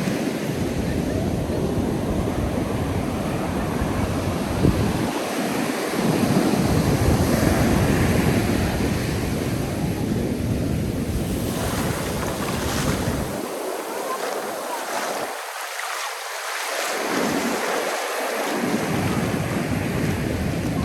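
Ocean surf breaking and washing on a sandy beach, with wind buffeting the microphone in gusts that ease off for a few seconds in the second half.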